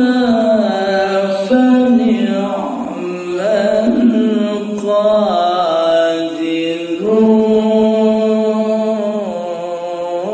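A man's solo Qur'anic recitation in the melodic tilawah style, sung into a microphone: long held notes with wavering, ornamented turns of pitch, and a new phrase beginning about seven seconds in.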